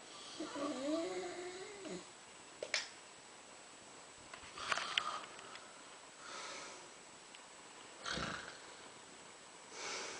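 A woman snoring: a long snore with a wavering pitch, a sharp snort, then raspy snoring breaths about every two seconds.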